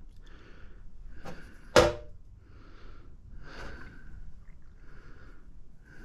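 Small metal magnetron cathode pieces being handled and set down on a stainless-steel platform scale, with one sharp metallic clack about two seconds in. Soft handling and breathing sounds come between the clacks.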